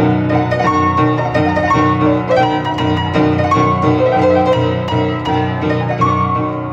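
Piano music: a melody of quickly changing notes over held low notes.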